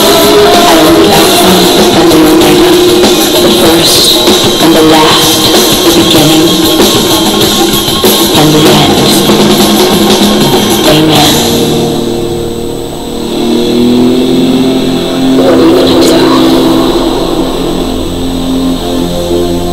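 Rock music track with guitar and drums. About eleven seconds in the full band drops away, leaving held notes over a low bed, with one sharp hit near the end.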